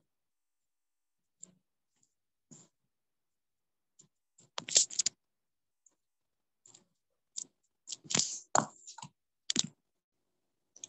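Sparse, irregular clicking of computer keys, a few clicks at a time with pauses between; the loudest cluster comes about halfway through.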